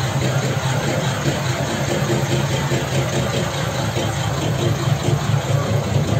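A heavy vehicle engine idling close by, a steady low rumble with general traffic noise around it.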